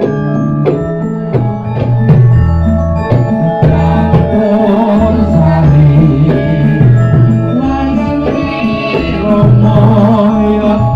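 Campursari music, loud and continuous: ringing mallet-struck notes over a steady bass line and hand drums, in a regular beat.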